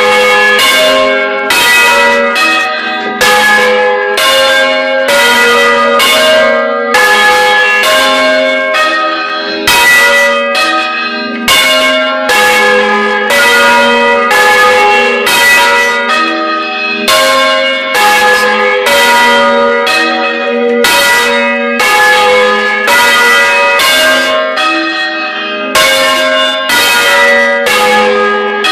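Several bronze church bells swinging and being struck in quick succession, roughly two strokes a second, each stroke ringing on into the next, heard loud and close from among the bells in the belfry.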